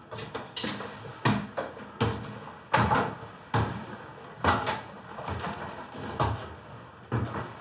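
Slow, heavy footsteps of an elderly man climbing a staircase, about one step every 0.8 seconds, each a distinct knock.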